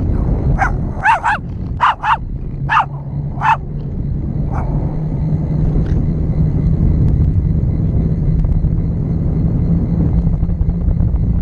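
Small Pomeranian–Shih Tzu mix dog barking in short, sharp yips, about eight in the first four to five seconds, several in quick pairs. Under the barks and after them come a steady rumble of wind on the microphone and a low steady hum.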